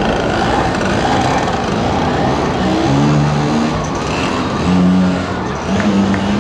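Small engine of a vintage two-stroke scooter running at low speed, its pitch stepping up and down as the throttle is opened and eased in short blips.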